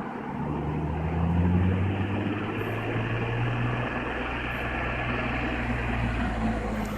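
BMW E46 M3's S54 straight-six running through a full Magnaflow exhaust, the exhaust note coming up about half a second in, swelling briefly, then holding fairly steady.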